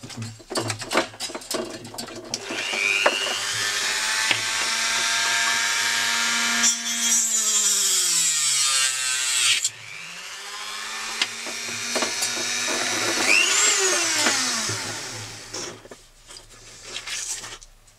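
Handheld rotary tool with a grinding bit, trimming a plastic camera mount. After a few handling clicks the motor spins up and whines steadily as it grinds. About halfway through it slows almost to a stop and spins back up, then winds down and stops a couple of seconds before the end.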